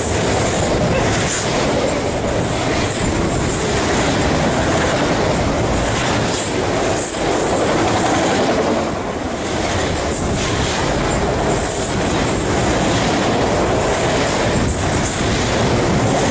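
Freight train of autorack cars passing close at about 60 mph: a loud, steady rumble of steel wheels on rail, with a few clacks and a brief drop in loudness about nine seconds in.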